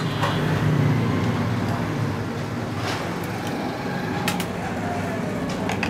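Steady low background rumble with a few light metal clicks as small tools and parts are handled at a sewing machine's needle clamp.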